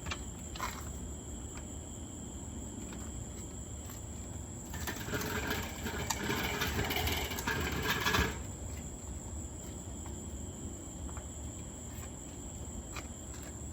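Rattling and clattering, made of many quick clicks, for about three and a half seconds in the middle, with a few single clicks before and after.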